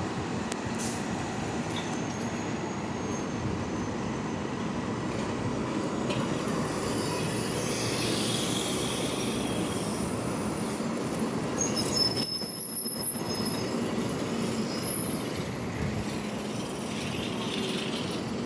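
Train running with a steady rumble, its wheels squealing in high thin tones that start about twelve seconds in, where it is loudest.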